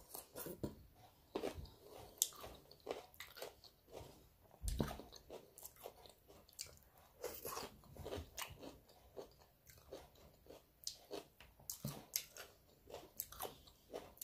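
A person biting and chewing food, with irregular crunching and small clicks throughout and one louder knock about five seconds in.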